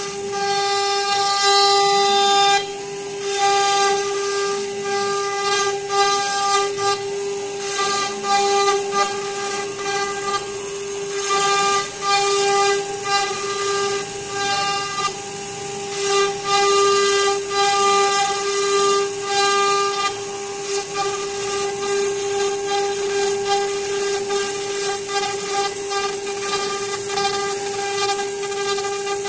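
CNC router spindle running with a steady high whine while its V-bit carves a decorative pattern into a wooden door panel, with a hissing cutting noise that swells and fades as the bit works along the curves.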